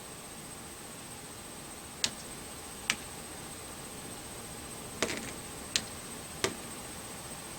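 A pointer tapping on a wall chart: five sharp, separate taps spaced irregularly about a second apart, over a faint steady high-pitched whine.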